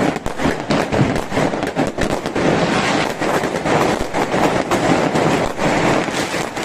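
Fireworks going off in a dense barrage: many overlapping bangs and crackles without a break.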